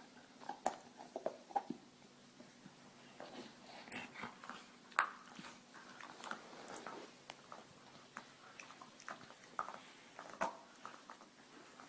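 A dog making short grumbling and mouthing noises, with several sharp clicks that are loudest about four and five seconds in and again near the end.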